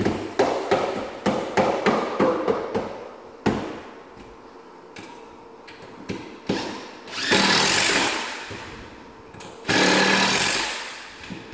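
Cordless impact driver driving screws into pine 2x4 framing: a stuttering run of short hits over the first few seconds, then two steady runs of about two seconds each as screws are driven home.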